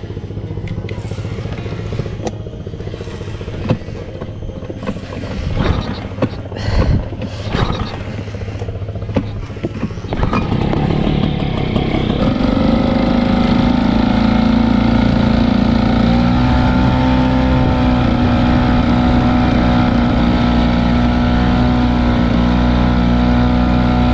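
Hangkai 3.6 HP outboard motor on an inflatable boat running low with a few knocks and clatter at first. About ten seconds in it is opened up and then runs steadily at cruising speed with the boat under way.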